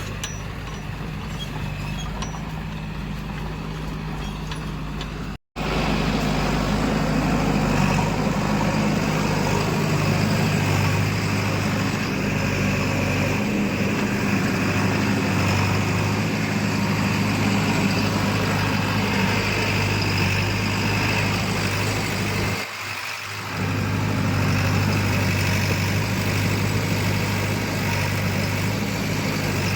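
Heavy diesel machinery engine running steadily, cut off for a split second about five seconds in, with a short dip in level near the end.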